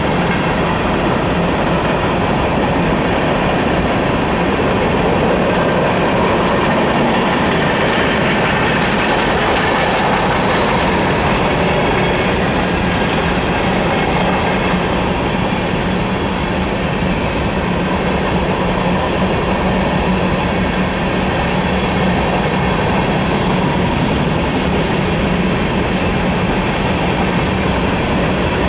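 Freight train's covered hopper cars rolling past at steady speed: continuous wheel-on-rail noise that holds level throughout.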